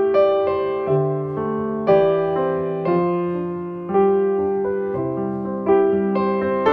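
Background piano music: slow notes and chords struck about once a second, each ringing and fading before the next.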